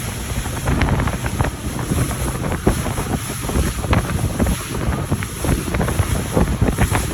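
Wind buffeting the microphone on a moving boat, with the rush and splash of water against the hull; a gusty, irregular crackling over a low rumble.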